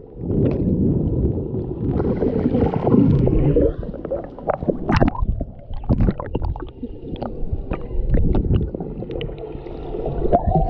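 Swimming-pool water heard from below the surface: a muffled, churning low rumble of water and bubbles from swimmers kicking close by. For the first few seconds it is a dense rumble; after that it is broken by scattered sharp clicks and knocks.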